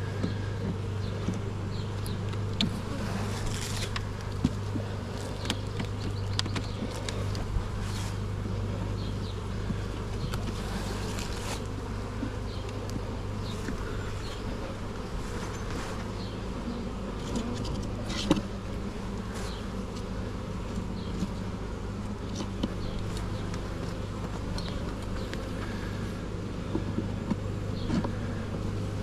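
Honey bees from an opened, disturbed hive buzzing steadily in a low hum, with short clicks and knocks now and then.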